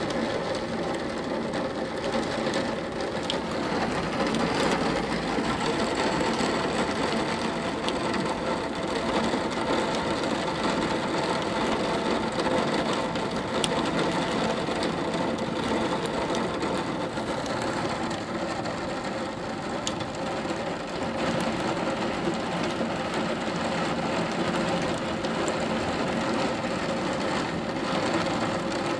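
Heavy thunderstorm downpour pouring onto a tiled roof: a dense, steady hiss.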